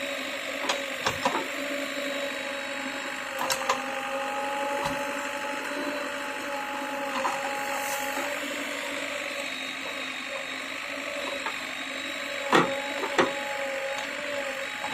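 JCB backhoe loader running steadily with a held, pitched drone, broken by a few sharp knocks early on and two loud ones near the end.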